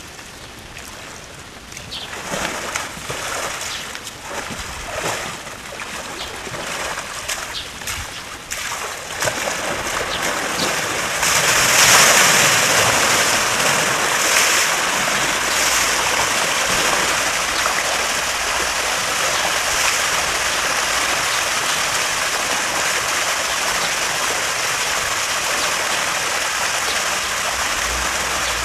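Water pouring over concrete steps into a pool as it fills: scattered splashes at first, then from about a third of the way in a loud, steady gushing that stays on.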